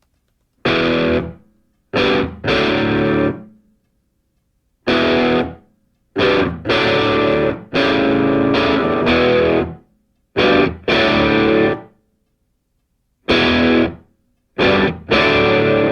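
Distorted electric guitar playing short chord phrases, each stopping dead into silence before the next; near the end the chords run on without a break.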